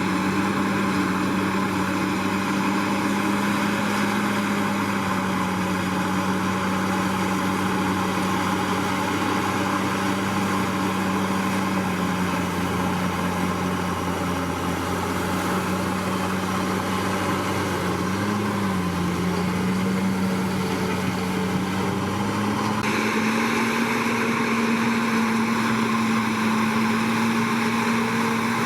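Komatsu D61PX bulldozer's diesel engine running steadily under varying load. Its pitch sags slightly, blips briefly about two-thirds of the way through, and rises again near the end.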